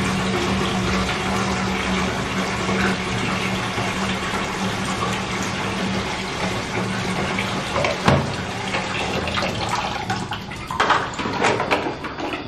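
Steady rush of running water with a constant low hum under it. Near the end come a few sharp snaps and rustles as leafy green stalks are broken by hand.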